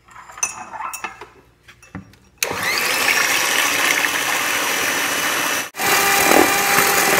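A few light knocks, then a handheld electric mixer switches on about two and a half seconds in. Its motor whines up to speed and runs steadily as the beaters whip raw egg whites in a plastic bowl. Near the end it breaks off for an instant and starts running again.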